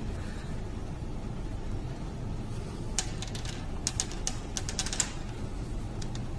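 A quick run of light clicks and taps from small glass sample vials being handled on a stone countertop, bunched about three to five seconds in with one more near the end, over a steady low rumble.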